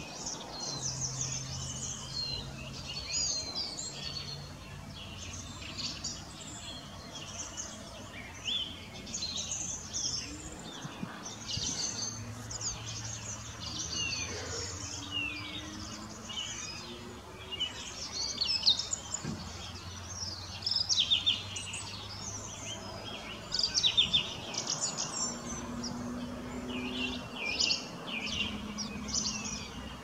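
Small songbirds chirping and twittering almost without pause, many short high calls overlapping, over a faint low hum.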